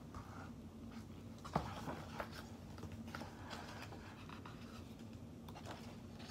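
Page of a picture book being turned and handled: faint paper rustles with one sharper tap about one and a half seconds in, over a low steady hum.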